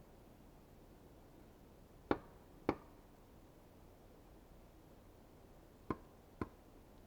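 Four sharp knocks of a tool striking wood, in two pairs about half a second apart, with roughly three seconds between the pairs.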